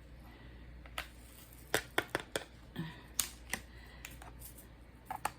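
Small light clicks and taps, about eight at irregular intervals, several in quick succession in the middle: a diamond-painting drill pen picking up and pressing resin drills onto the canvas.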